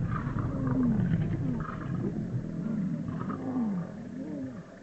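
Lion vocalising: a run of short, low calls that rise and fall in pitch, several in a row, dying away near the end.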